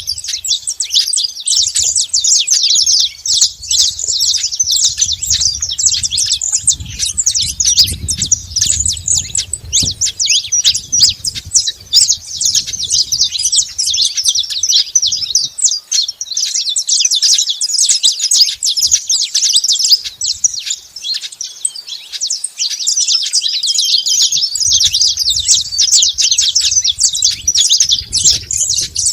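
Saffron finches chirping rapidly and without a break, a dense stream of high, sharp notes.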